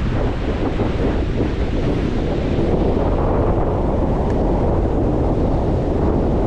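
Ocean surf washing onto the beach, with strong wind buffeting the microphone and a constant low rumble.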